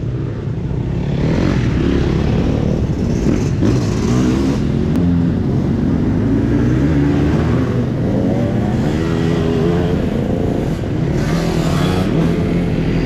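Several motocross motorcycle engines revving hard, their pitch rising and falling again and again with throttle and gear changes.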